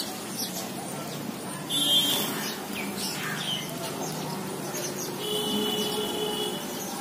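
A flock of sparrows chirping, with many short overlapping chirps and two longer held high notes, the first about two seconds in.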